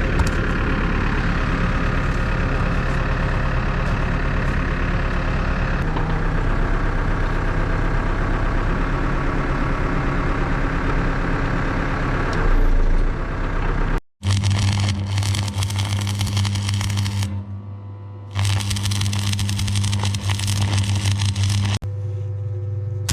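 Backhoe loader's diesel engine running, with a dense scraping noise over it for the first half. About 14 seconds in the sound cuts out for a moment and comes back as a steadier, deeper engine note.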